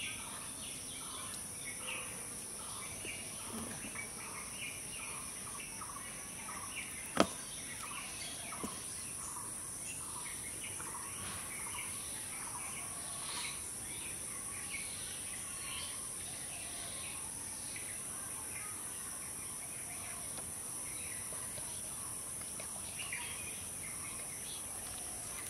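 Rural outdoor ambience: a steady high insect drone with a bird calling over and over in short notes, about two a second. There is one sharp click about seven seconds in.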